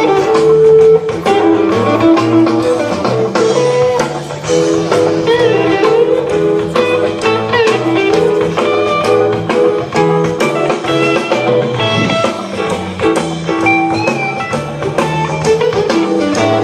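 A rock band playing live: guitar over bass and a drum kit.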